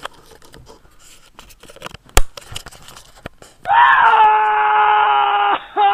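Light handling rustles and clicks with one sharp click about two seconds in, then, a little past halfway, a loud long held note with a thin, band-limited sound that breaks off for a moment near the end and starts again.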